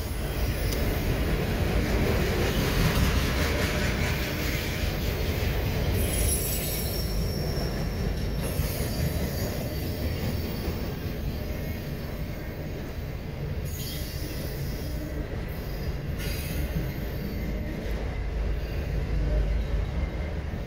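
CSX freight train of autorack cars rolling past close by: steady noise of steel wheels on the rails, with thin high-pitched squealing near the start and again about six to eight seconds in.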